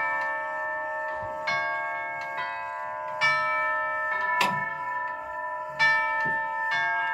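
Zachariah tubular grandfather clock's chime tubes being struck, about five notes a second or so apart, each ringing on under the next. The chime keeps playing after an attempt to silence it, which the owner takes for a stuck chime mechanism.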